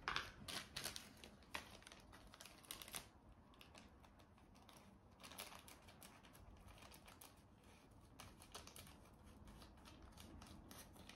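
Faint crinkling and irregular clicking of a small packet being torn and picked open by hand, busiest in the first three seconds.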